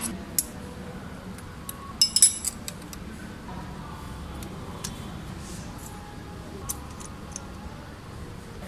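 Scattered metallic clicks and clinks of an Allen key and small steel bolts being worked loose from a motorcycle engine's oil filter cover, with a cluster of ringing clinks about two seconds in.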